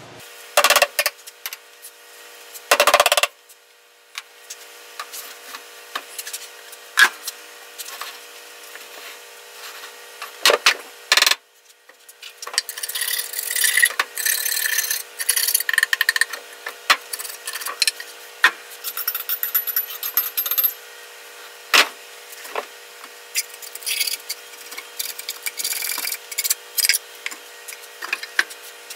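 Wooden sand-casting flask being opened after an aluminum pour: a series of separate knocks and clatters as metal cans and wooden flask parts are lifted off and set down. From about halfway through there is a stretch of scraping and rubbing of foundry sand against wood.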